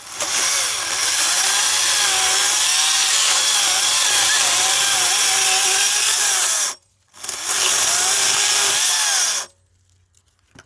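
Greenworks 60-volt battery chainsaw running and cutting firewood, its motor whine wavering in pitch under load. It stops abruptly about two-thirds in, starts again, and cuts off suddenly near the end as the trigger is let go.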